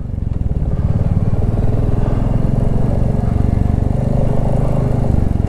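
Royal Enfield Classic 350's single-cylinder engine running steadily under way, with an even, rapid pulse.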